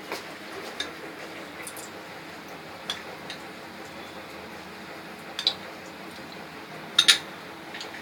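Scattered light clinks and taps of kitchen utensils and containers against a metal kadhai, a few isolated ones and a sharper double clink about seven seconds in, over a steady faint background hum.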